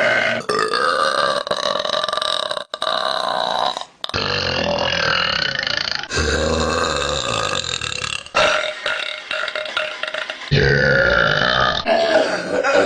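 A string of long, drawn-out burps from different women, one after another. About seven of them, each a second or two long, are joined by abrupt cuts.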